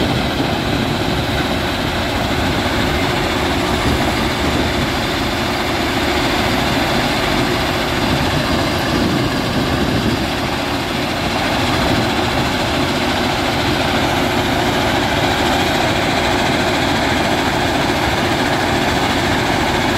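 Matisa C75-2c ballast undercutter-cleaner working on the track: a loud, steady, unbroken mechanical din of heavy engines and machinery.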